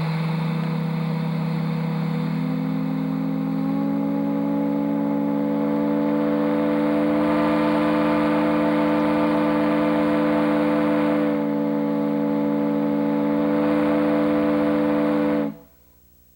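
10-inch Lonergan chime whistle blown on compressed air: a low, steady chord of several notes, with more notes filling in over the first few seconds as the air builds. It is held for about fifteen seconds and then cuts off sharply near the end.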